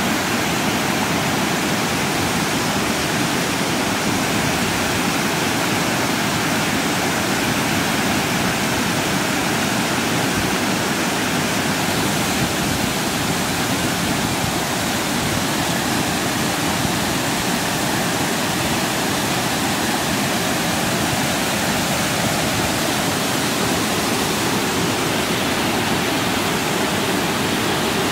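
River water pouring over a low weir in a wide cascade: a steady, unbroken rush of falling water.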